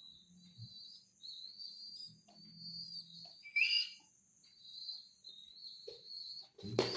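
Pigeon squab giving high-pitched, wavering whistle-like peeps in short repeated runs while being hand-fed, with one louder rising peep about halfway through. A sharp knock comes near the end.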